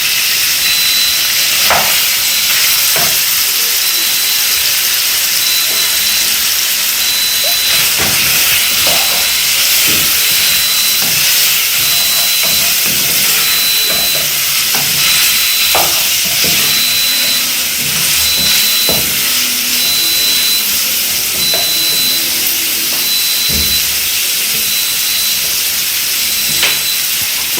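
Liver and onions sizzling in a frying pan, a steady hiss, with scattered knocks and scrapes of stirring.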